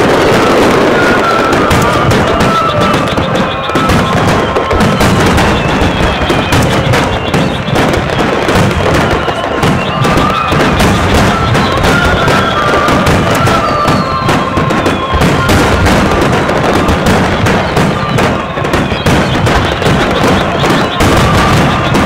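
A fireworks display finale: aerial shells bursting in rapid, overlapping succession, thick enough to make a continuous loud barrage. Music is heard along with the bursts.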